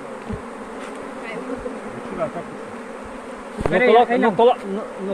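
A swarm of honeybees buzzing steadily, stirred up as they are shaken out of an old tyre into a Langstroth hive box, with a few dull knocks. A person's voice comes in near the end.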